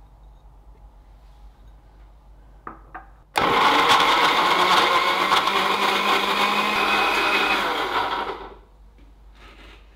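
Countertop blender running for about five seconds, blending chopped fresh strawberries. Two small clicks come just before the motor starts abruptly about three seconds in, and it winds down shortly before the end.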